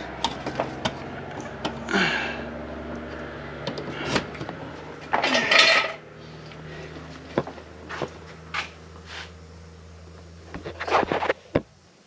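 Metal tools and parts clanking and scraping as they are handled on a workbench, over a steady low machine hum that cuts off about eleven seconds in.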